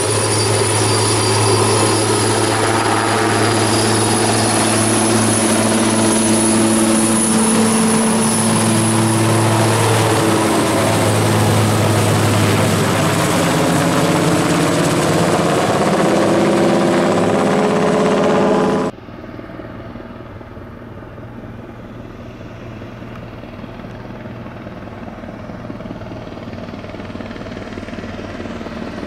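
Aérospatiale AS332L1 Super Puma helicopter with twin Turbomeca Makila turboshafts: loud, steady rotor and engine noise with a high turbine whine as it hovers and climbs away. About two-thirds of the way through, the sound cuts to a quieter, more distant helicopter with no whine, growing louder toward the end.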